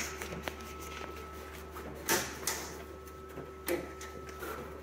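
Handling sounds while threading label stock through a label finisher's rollers: a few short paper rustles and light knocks on the metal roller bars, the loudest about two seconds in. Under them runs the steady hum of the running machine.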